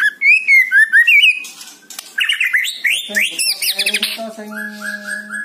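White-rumped shama singing a fast, varied song of rising and falling whistles and quick upward sweeps, ending with a run of short, even repeated notes.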